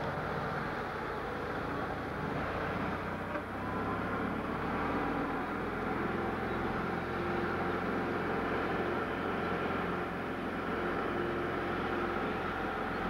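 A car engine running steadily at low speed, a continuous hum without pauses or sudden changes.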